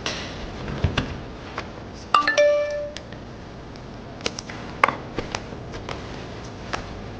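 A short electronic chime about two seconds in, a single pitched tone held for under a second, among scattered light clicks and knocks.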